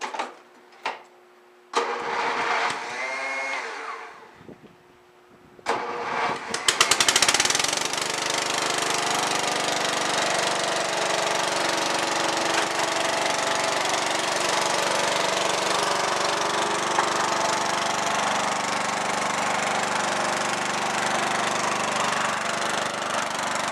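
Murray 12 hp lawn tractor engine being started: a first crank of about two seconds that does not catch, then a second crank about six seconds in that catches. From there it runs steadily at high throttle while the rear tires spin and smoke on the concrete floor.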